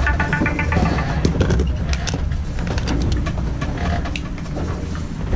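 Inside a small sailboat's cabin under way at sea: a steady low rumble with many scattered creaks, clicks and knocks from the hull and loose gear.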